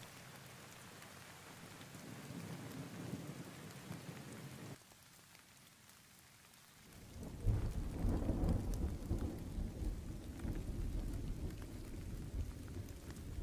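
Thunderstorm: steady rain with rolling thunder. A low rumble swells about two seconds in and cuts off suddenly near five seconds, then a louder deep roll of thunder builds about seven seconds in and keeps rumbling.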